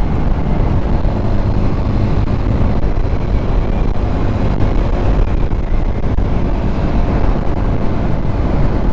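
TVS Apache RTR 200 4V single-cylinder motorcycle ridden at highway speed, easing from about 92 to 86 km/h: steady rush of wind over the microphone mixed with the engine running.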